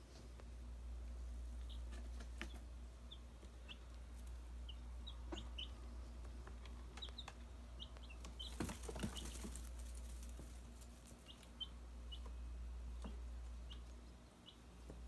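Week-old chicks peeping: many short, high, scattered peeps over a low steady hum, with a brief rustle about nine seconds in.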